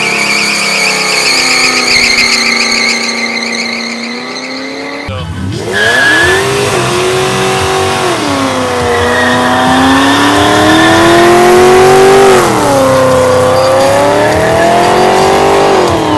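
Burnouts: for the first five seconds spinning tyres squeal in a wavering high note over a running engine. Then a Dodge Charger police car's engine revs up and down in long surges while its rear tyres spin in smoke, the revs dropping sharply twice.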